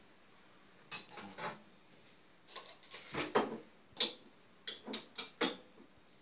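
Kitchen handling sounds: dishes and cutlery clattering in a series of short, irregular clicks and scrapes.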